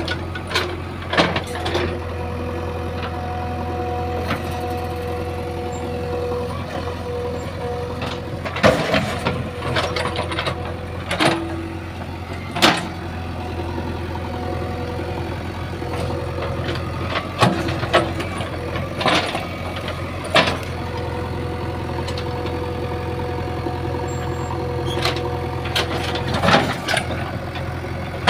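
JCB 3DX backhoe loader's diesel engine running steadily under work, with sharp knocks from the machine every few seconds.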